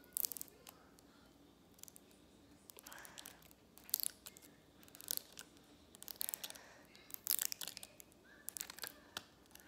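Plastic blind-bag packaging crinkling and tearing in a series of short crackles as it is handled and pulled open.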